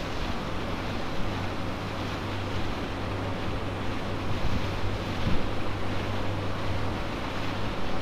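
Steady low hum of a ferry's engine under a continuous wash of wind and water noise, with wind buffeting the microphone.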